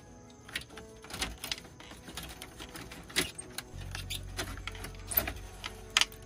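Irregular sharp clicks and light metallic knocks of a Pioneer car-stereo head unit and its sheet-metal mounting sleeve being handled and fitted together. A low steady hum comes in a little past halfway.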